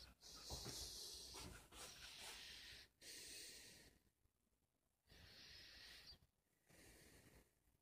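Faint breathing close to the microphone: a few soft, hissy breaths of about a second each, with quiet gaps between them.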